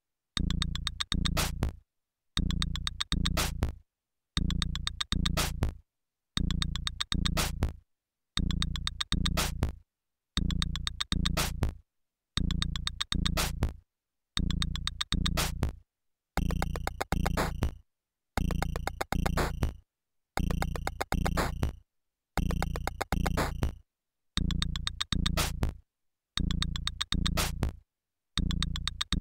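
Electronic music played on a Teenage Engineering Pocket Operator Office synthesizer: a short synth and drum-machine pattern that repeats about every two seconds, each pass stopping dead before the next. For a few bars in the middle, a layer of high, short notes joins the loop.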